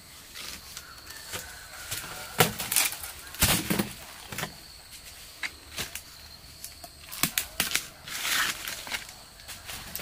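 Rustling and crackling in dry leaf litter with several sharp knocks as jackfruit are handled and moved on the ground. The loudest knocks come about two and a half and three and a half seconds in, and a longer rustle follows near the end.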